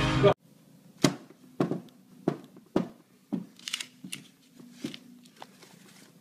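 Rock music cuts off just after the start. Then a hand handling a paper banknote at a computer screen makes a string of light taps and paper crinkles, roughly two a second.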